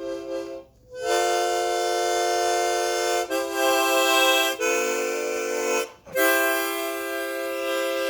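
Harmonica playing long held chords of several notes at once, changing chord about three seconds in and again near four and a half seconds, with two short breaks, one just before a second in and one around six seconds.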